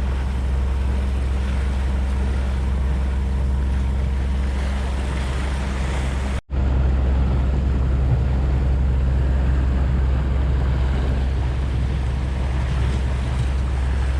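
Motorboat engine running at a steady low drone, with water and wind noise, heard from aboard the boat. The sound cuts out for an instant about halfway through.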